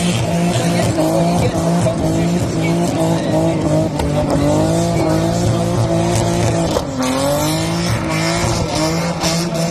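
Barra straight-six engine in a Commodore burnout car revving hard and holding high revs while the rear tyres spin and squeal in a burnout. The engine pitch wavers up and down, drops sharply about seven seconds in, then climbs again.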